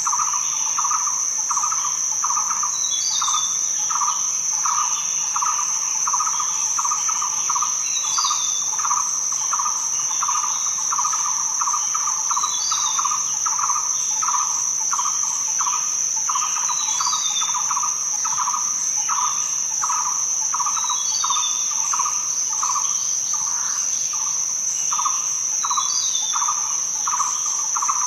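Crickets and other insects chirping: a steady high trill with a lower pulsing chirp a few times a second. A short bird chirp breaks in about every four seconds.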